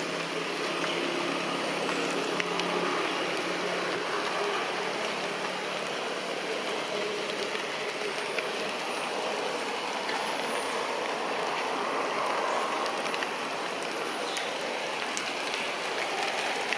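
Steady outdoor background hiss, with a faint low hum early on and a few faint, very high arching notes in the middle.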